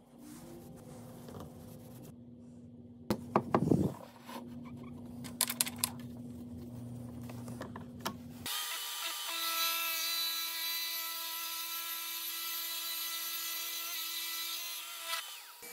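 Drill press boring an 18 mm Forstner bit into clamped wooden table-leg blanks: a steady whine with several tones over the chip-cutting noise, starting about eight and a half seconds in and stopping just before the end. Before it come quiet workshop handling sounds and a short run of loud knocks and clatters about three to four seconds in.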